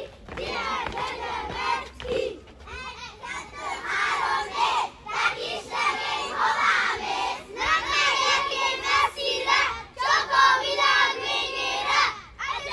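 Many children's voices at once, loud and overlapping, shouting and calling in short bursts with brief breaks every couple of seconds.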